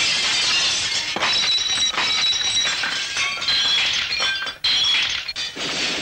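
Drinking glasses and stemmed goblets shattering in a dense, continuous crash of breaking glass. Bright ringing shards and sharp cracks recur throughout, as the glassware is shot apart.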